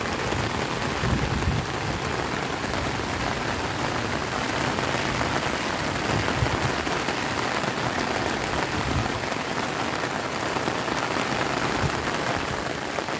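Steady rain falling on a flat concrete rooftop, an even hiss of drops.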